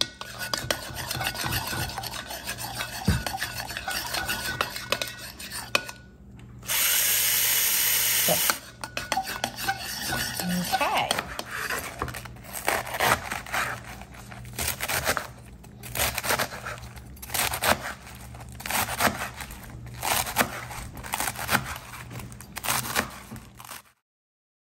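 A spoon stirring thick dressing in a ceramic bowl. After a break comes a loud steady hiss for about two seconds, then a knife chopping romaine lettuce on a cutting board in many quick, uneven strokes.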